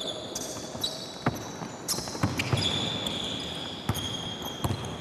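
Basketball bouncing on a gym court: irregular sharp bounces as players move the ball, with high squeaks of sneakers on the floor.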